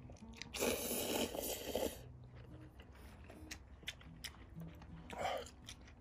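Close-miked eating of ramen: a loud noisy mouthful lasting about a second and a half, then soft chewing clicks, and a shorter noisy mouthful near the end.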